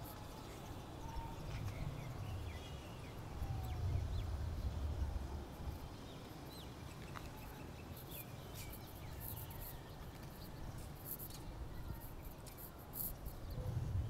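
Kittens eating, with scattered small clicks over a low rumble and a few faint high chirps.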